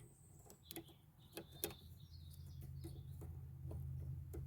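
Light, scattered clicks and taps of the seatbelt parts and wiring plug being handled and fitted. Faint bird chirps in the background, and a low steady hum sets in about halfway through.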